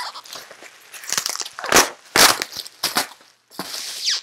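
Packaging being handled and pulled open by hand: irregular crinkling and crackling, with a few louder crunches about two seconds in and a short rip near the end.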